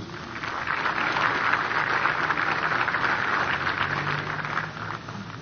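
Audience applauding, swelling in within the first second and dying away near the end.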